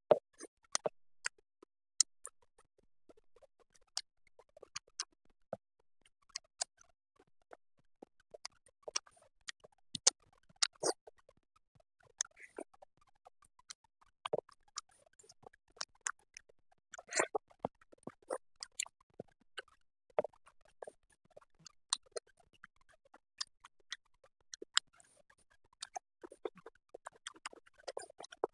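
Close-up eating sounds of a person chewing chicken biryani eaten by hand: irregular sharp mouth clicks and smacks, a few of them louder than the rest.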